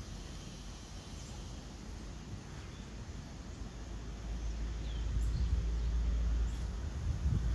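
Outdoor ambience: low wind rumble on the microphone that grows stronger in the second half, with a few faint bird chirps.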